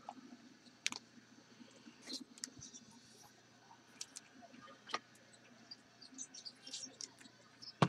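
Faint crackling and clicking of trading-card packs and cards being handled and opened, with a sharper click now and then and a louder pair of clicks near the end, over a faint steady low hum.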